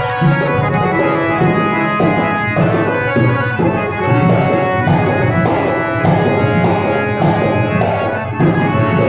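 Harmonium playing an instrumental melody between sung lines, its reeds holding steady notes that change every half second or so, over a steady percussion beat about twice a second.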